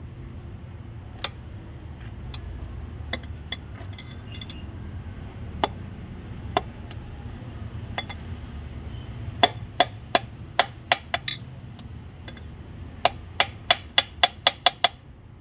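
Sharp taps on a piston as it is driven down into a cylinder bore of a Range Rover 5.0 V8 engine block: a few scattered clicks, then two quick runs of about six and about eight taps. A steady low hum runs underneath.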